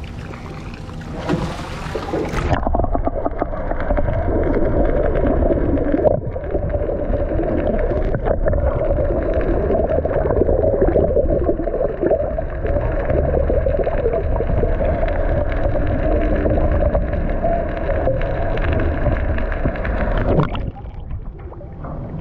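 Muffled underwater water noise picked up by a submerged camera: a steady low rush with gurgling. It goes under about two and a half seconds in and comes back up into open air near the end.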